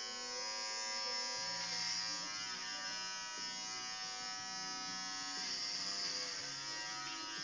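Electric hair clippers with a plastic guard buzzing steadily as they shave hair close to the scalp around the ear, the pitch dipping slightly a little past halfway as the blade works through hair.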